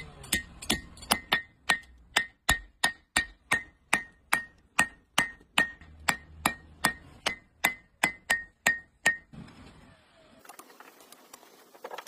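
Blacksmith's hammer striking metal on an anvil in a steady rhythm of about two and a half blows a second, each blow ringing. The hammering stops about nine seconds in.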